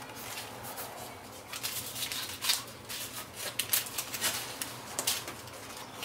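Irregular crinkling rustles and light clicks of hands working a plastic overfender and its adhesive tape into place against the car body, with a few sharper clicks in the middle.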